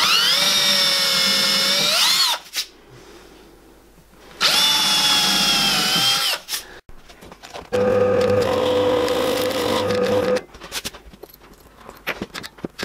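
A cordless drill spins up and runs in two short bursts of about two seconds each, pilot-drilling two holes into plywood. A few seconds later an SIP pillar drill runs with a steadier, lower hum as a Forstner bit bores into the plywood table.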